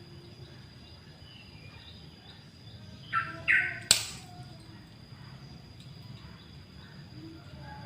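Lovebird giving two loud, shrill calls in quick succession about three seconds in, followed at once by a sharp click. Fainter chirps come before and after.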